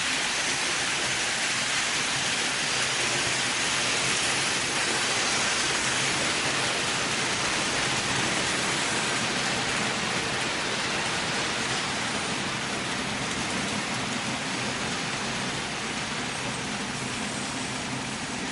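HO-scale model freight train running over the layout's metal track: a steady rolling rattle of wheels on rails with a faint low hum beneath, easing slightly toward the end.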